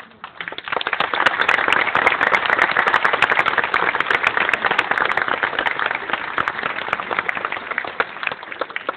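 Crowd applauding, building up about half a second in and easing slightly near the end.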